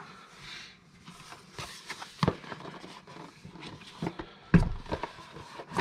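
Boxes and packaging being handled: a brief rustle, then scattered clicks and knocks, with the loudest thud about four and a half seconds in.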